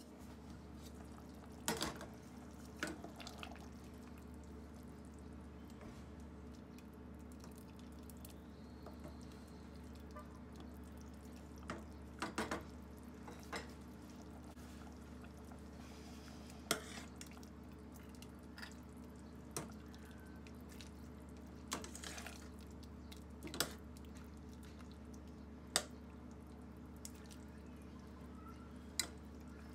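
A pot of fava bean stew simmering on a gas stove: short sharp pops and clinks every couple of seconds over a steady low hum.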